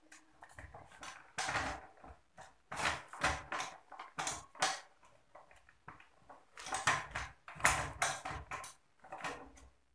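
Bicycle rear wheel and chain being handled and fitted into the frame: irregular metallic clinks, knocks and chain rattles, in several clusters.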